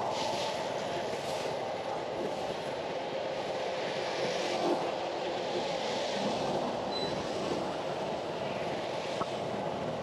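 Steady street traffic noise: motorbikes and a pickup-truck taxi running past, under a constant hiss.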